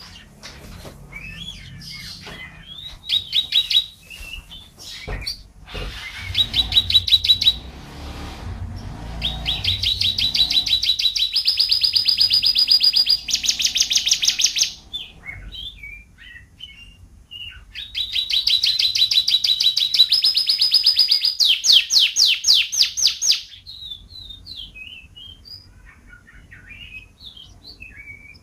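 Domestic canary singing: long, fast trills of rapidly repeated high notes in several bouts, the longest running several seconds, with softer scattered chirps and twitters in between.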